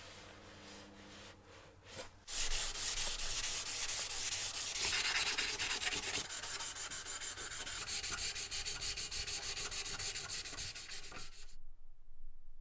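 Rapid back-and-forth abrasive scrubbing on the metal of an antique stove, as in cleaning off rust or old finish. It starts about two seconds in, runs steadily for about nine seconds, then stops suddenly.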